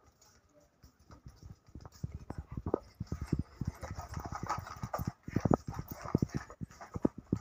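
Footsteps of several people in sandals slapping on a concrete floor: a quick, irregular run of short knocks that starts about two seconds in.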